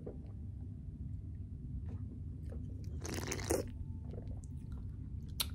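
Close-up mouth sounds of eating a snack: soft chewing and small ticks, with a louder crunch about three seconds in and a short click near the end, over a low steady hum.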